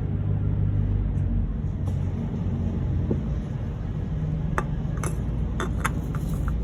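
A new oil filter handled and fitted by hand under a car, giving several sharp light clicks and clinks over a steady low rumble, most of them between about four and six seconds in.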